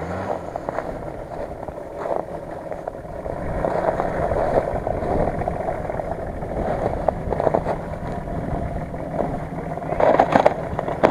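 Nissan Patrol SUV's engine running at low revs as it creeps down a snowy bank, under a steady noisy rumble. About ten seconds in, a cluster of louder crunching knocks comes as its front wheel reaches the stream's ice.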